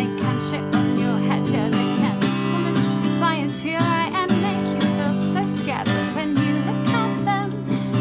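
A woman singing over a strummed acoustic guitar, the chords strummed steadily beneath a melodic vocal line.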